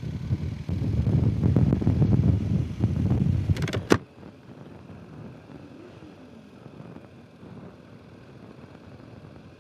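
Loud, gusty wind and riding rumble on a motorcycle helmet's intercom microphone. A sharp click about four seconds in cuts it off suddenly, leaving only a faint steady hiss.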